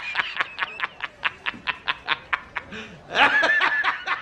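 A rapid snickering laugh from a meme sound effect: short breathy pulses, about five or six a second, with a louder, higher held voice sound about three seconds in.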